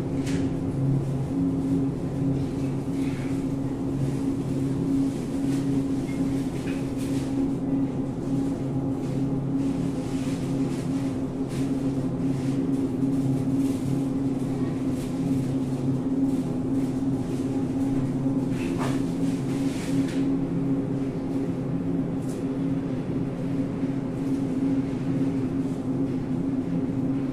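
Steady low mechanical hum of supermarket freezer cabinets' refrigeration, with a few faint clicks and knocks now and then.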